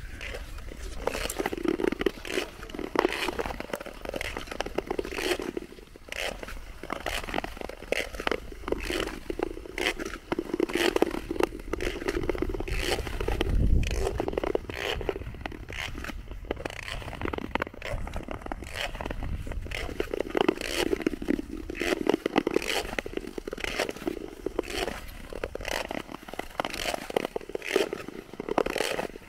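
Ice skate blades scraping and crunching on frozen lake ice, stroke after stroke, as a skater glides along.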